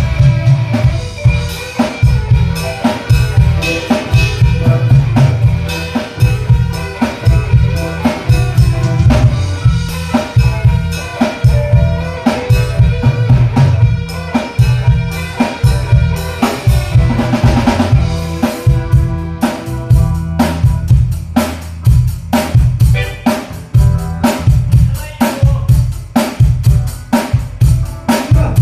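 Rock band music driven by a busy drum kit, with bass drum, snare and rimshot hits over bass and other instruments.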